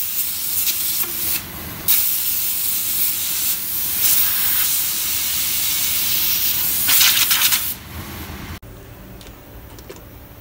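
Compressed-air blow gun hissing loudly as it blows dust off the rear brake shoes and hub, in blasts with short pauses, stopping about eight seconds in.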